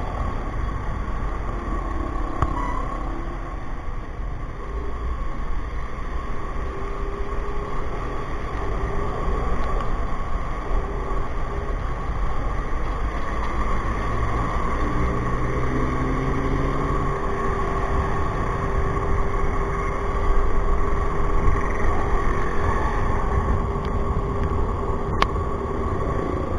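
Steady ride noise from a scooter moving slowly through traffic: low wind rumble on the microphone and the scooter's engine running, with a steady thin whine throughout. A deeper engine note swells and fades about halfway through.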